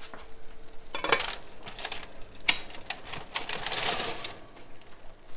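A quick, irregular run of light clicks and clinks, kitchenware being handled. It starts about a second in and dies away after about four seconds.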